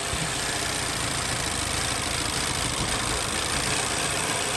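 Vauxhall Insignia's 1.6 SIDI (A16XHT) four-cylinder turbo petrol engine idling steadily with a new PCV valve fitted. No whistling or sucking from the camshaft seal: the air leak is cured.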